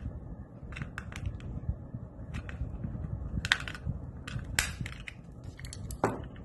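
Small plastic clicks, scrapes and cracks as a rechargeable torch's plastic casing is taken apart by hand to reach its charging port, with the loudest scrapes in the middle and a sharp crack near the end, over a steady low hum.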